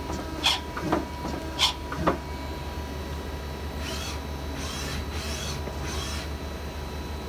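Takamaz X-10 CNC lathe running with a steady low hum, giving four sharp clicks or knocks in the first two seconds, then bursts of hiss from about four to six seconds in as its eight-station turret moves.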